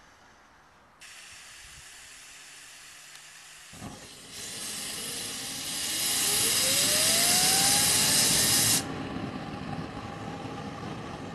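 Homemade axial-flow jet engine spinning up: a hiss starts about a second in, a knock comes near four seconds, then a loud rush of air with a whine rising in pitch as the rotor speeds up. The loudest hissing cuts off suddenly near nine seconds, leaving a quieter steady rush.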